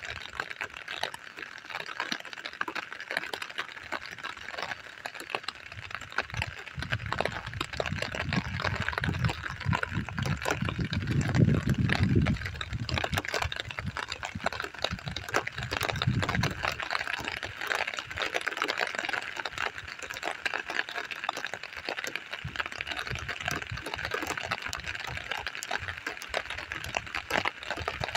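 Thunder rumbling low after a lightning flash, building for several seconds and loudest about halfway through before fading, over a steady chorus of crickets and the light ticking of rain.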